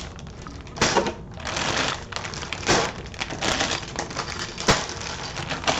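Rustling and clattering of LEGO set packaging being handled on a desk: paper and plastic crinkling, with a string of small clicks and knocks, a few of them sharper.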